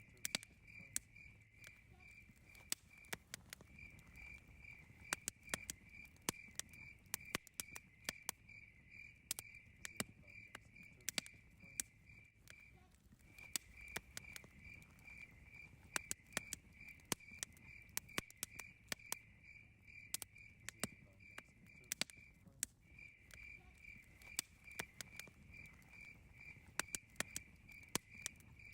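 Campfire crackling with frequent sharp pops, over a cricket chirping in a steady pulsed trill that breaks off briefly twice.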